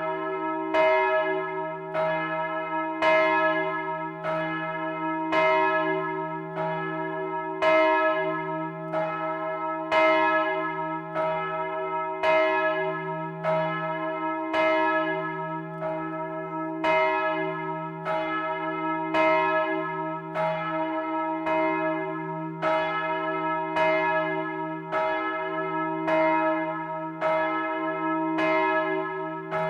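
Swinging church tower bells of the Freudenstadt Stadtkirche peal ringing steadily, with a clapper strike roughly every second over a continuous ringing hum.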